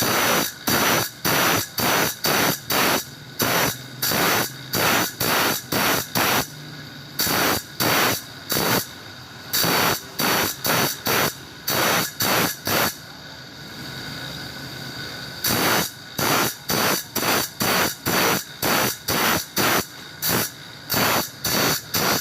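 A metal file rasping across hand-saw teeth in short, quick strokes, about two to three a second, in runs broken by brief pauses: the teeth being sharpened.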